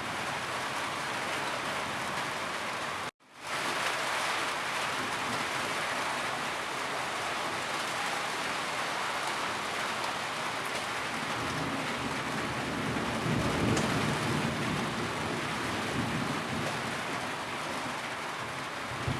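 Steady rain falling, an even hiss of many drops. The sound cuts out completely for a split second about three seconds in, then resumes. A low rumble swells under the rain for a few seconds past the middle.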